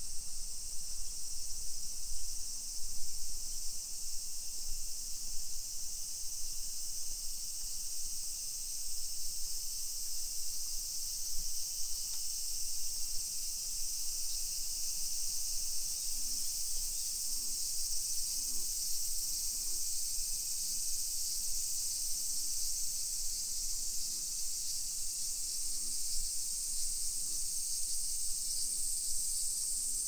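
Summer cicadas singing in a dense chorus: a steady, high, unbroken drone.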